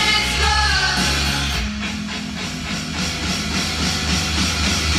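Hard rock record playing: a male voice singing for about the first second and a half, then heavy electric guitar, bass and drums.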